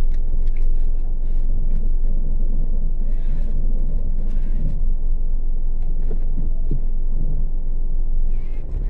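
Car engine and tyre noise heard from inside the cabin while driving slowly: a steady low rumble.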